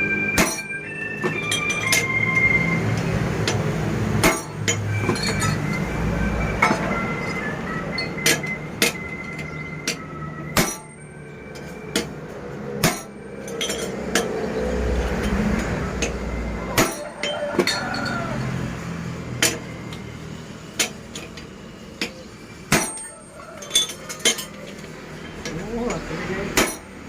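Blacksmith's hammer blows on metal at the forge, sharp clinking strikes coming irregularly about every one to two seconds.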